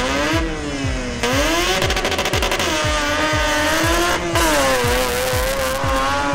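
A race engine revving, its pitch climbing and falling over several seconds, mixed with background music that has a steady kick-drum beat about twice a second.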